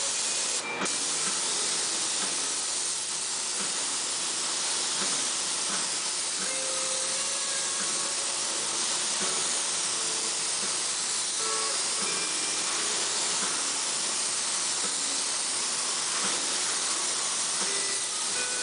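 Gravity-feed spray gun hissing steadily as it sprays thinned enamel paint onto a metal license plate.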